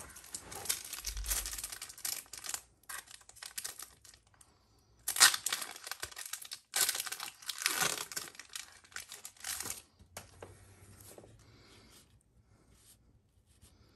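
Foil Pokémon booster pack wrapper being torn open and crinkled, in several ragged rips over the first ten seconds, the sharpest about five seconds in. Quieter rustling of the cards being handled follows.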